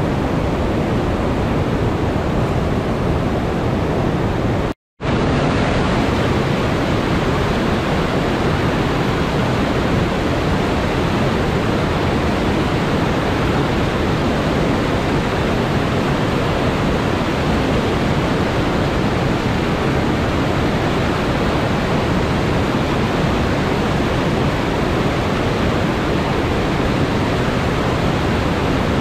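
Whitewater rapids of the Housatonic River below the Great Falls rushing steadily, a dense, even sound of water. The sound cuts out completely for a split second about five seconds in.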